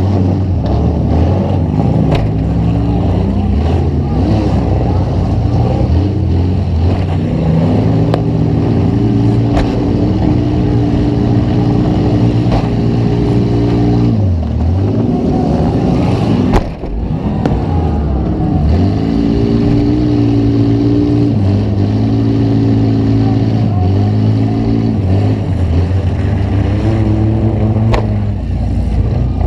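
Demolition derby car's engine heard from inside the car, revving up and down repeatedly as it drives, with a loud crash impact about halfway through and a few lighter knocks.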